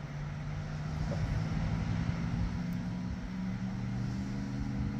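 Electric lift motor of a boat's push-button power engine hatch running, a steady hum as the hatch slowly raises.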